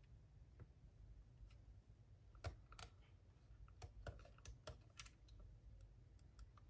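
Faint, scattered small clicks of a plastic cassette walkman being handled and its buttons pressed, over near silence.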